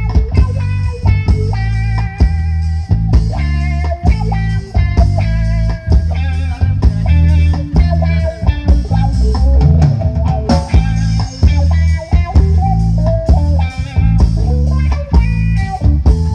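Recorded rock-style music with guitar, bass and drums played loud through a PA sound system under test, the bass very heavy.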